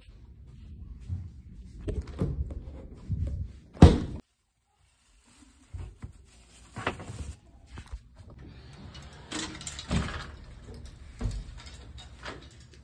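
Knocks and handling noise, with one sharp thunk about four seconds in, the loudest sound, followed by a brief total dropout of sound. After that come more bumps and the rustling of a plastic bag as a stuffed toy is pushed into it.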